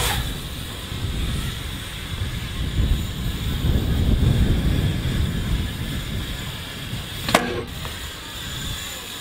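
BMX bike tyres rolling over a concrete skatepark with a steady rumble of wind over the following camera's microphone. A sharp knock about seven seconds in as the bike hops up onto a concrete ledge.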